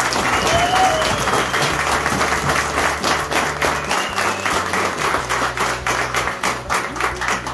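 A small group of people clapping and applauding, fast and continuous, with a few voices calling out in the first second or so.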